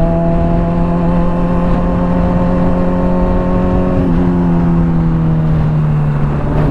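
Honda CBR600RR's inline-four engine running through a Hotbodies Stinger slip-on exhaust under way, its note holding steady and easing slightly lower in pitch, with a brief change about four seconds in. Wind rumbles on the helmet-mounted microphone.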